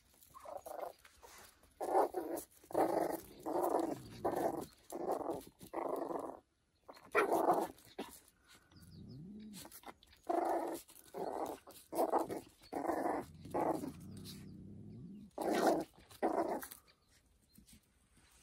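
Small fluffy puppy barking repeatedly at a cat, in two runs of short barks about two a second with a pause in the middle, and low growling under and between the barks.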